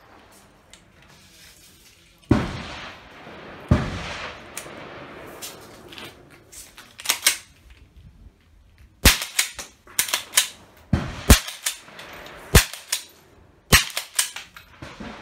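Remington Model 12 pump-action .22 rifle being test-fired with .22 target rounds. Two sharp shots with ringing tails come a second and a half apart, then a quicker run of sharp cracks and the metal clack of the pump slide being worked in the second half. A misfire is among them.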